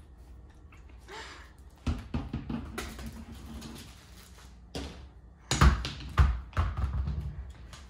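A dachshund puppy playing with rubber toys on a hardwood floor: scattered thumps and clatter of toys and paws, the loudest two about five and a half and six seconds in as a tossed toy lands.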